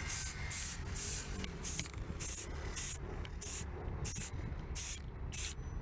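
Krylon aerosol spray can hissing in short bursts, about two a second, as paint is dusted onto a plastic tail light lens. The owner thinks the can is bad: with an improvised tip it is not spraying evenly.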